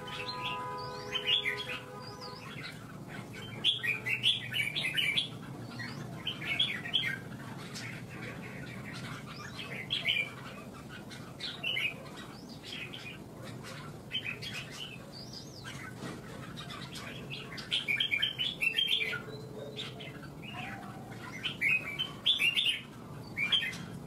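Caged red-whiskered bulbuls singing against each other in a contest: short, bright, warbled phrases repeated every second or two, with brief pauses between bouts.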